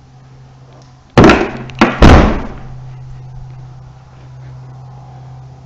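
Toyota Prius rear hatch dropping and slamming shut: three loud bangs within about a second, the last fading out briefly. The single remaining old gas strut is too weak to hold the hatch up.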